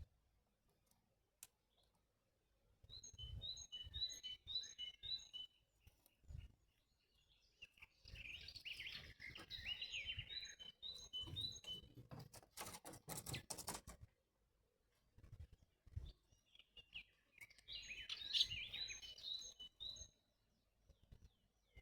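Small songbird calling in three bouts of quick, high, repeated chirps, with a rapid run of sharp clicks near the middle.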